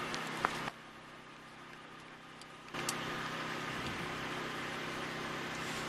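A steady mechanical hum, like a small motor running, which drops away abruptly for about two seconds near the start and then comes back. Two sharp clicks, one about half a second in and one about three seconds in.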